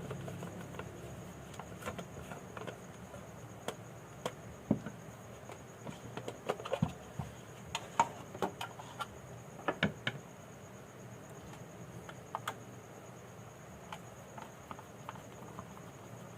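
Scattered small clicks and taps of hands handling and working on an opened Pulsar 150 motorcycle digital meter's plastic housing, irregular and sharp, over a faint steady hiss with a thin high tone.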